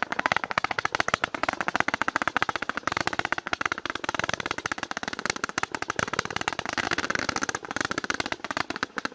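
Hop Kee Pride & Gratitude 182-shot consumer firework cake firing its tubes rapid-fire: a fast, unbroken string of sharp launch pops.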